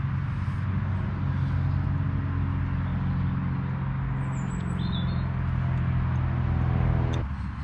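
Road traffic on a dual carriageway: a steady low engine drone that swells slightly and then cuts off suddenly near the end. A bird chirps briefly about halfway through.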